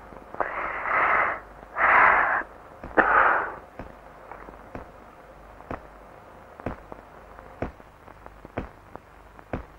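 A woman's three breathy sighs in the first few seconds, then a clock ticking evenly about once a second.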